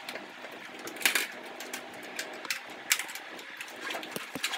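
Small household objects being handled and set down on a dressing table, cosmetics and cosmetic pouches, making a series of short clicks and knocks at irregular intervals. The loudest come about a second in and about three seconds in, over a steady low hum in the room.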